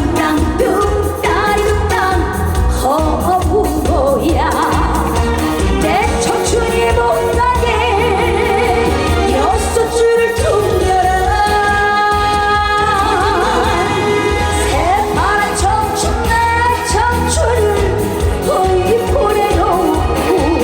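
A woman singing a trot song live with wide vibrato over a band backing track with a steady beat and heavy bass.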